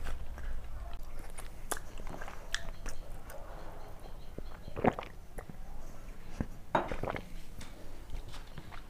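Close-miked mouth sounds of a person eating with her fingers: wet chewing and small clicks, with two louder swallows about halfway through as she drinks water from a steel tumbler.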